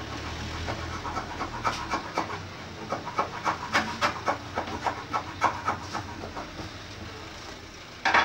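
Short, irregular scraping strokes of hand work along a wooden board, over a steady low hum, then a loud wooden knock near the end.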